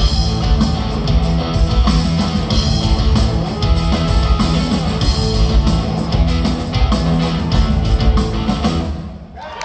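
Live rock band playing loud, with electric guitars and a drum kit hitting a steady beat; the music stops suddenly near the end as the song finishes.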